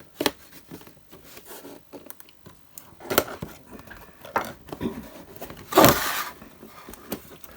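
Cardboard toy box and plastic packaging being handled and opened by hand: scattered taps, clicks and rustles, with a louder rustling burst about six seconds in.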